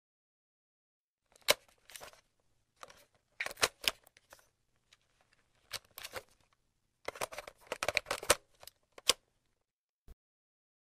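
Irregular clusters of sharp mechanical clicks and rattles over a faint low hum, the hum stopping shortly before a single last click near the end.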